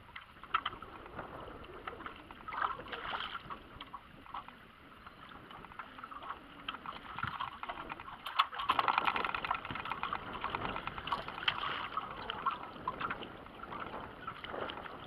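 Water lapping and slapping against a small aluminum boat's hull, with irregular sharp knocks and splashes, the loudest a little past halfway.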